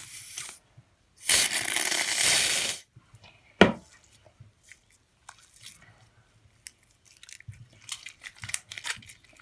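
Can of silly string sprayed in one burst of about a second and a half, a hissing rush, followed by a sharp click; faint squishing and crackling of slime being handled near the end.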